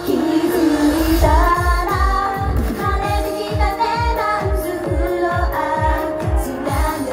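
A female vocal group singing a pop song live into microphones over amplified backing music with a steady kick-drum beat.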